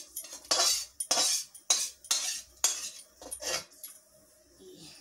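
A metal ladle scraping and knocking inside a steel kadhai, about two strokes a second, as cooked, mashed greens are scooped out. It stops about three and a half seconds in.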